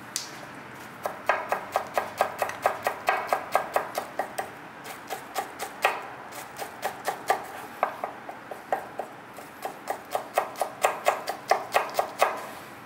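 A kitchen knife chopping quickly on a cutting board, about four even strokes a second, in runs broken by short pauses.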